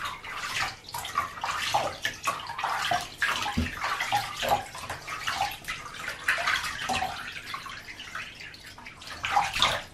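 Bath water being scooped by hand and splashed over a pug puppy standing in a shallow bathtub, with irregular splashing and trickling.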